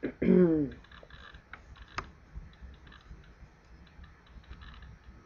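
Computer keyboard typing: light, scattered key taps with one sharper click about two seconds in. A short voice sound with falling pitch comes at the very start.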